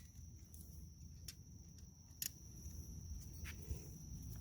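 Quiet outdoor background: a steady, faint, high-pitched whine with a few soft clicks.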